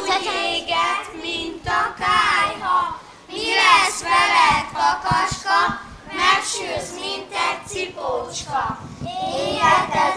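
A group of children's voices singing together in unison, without instruments.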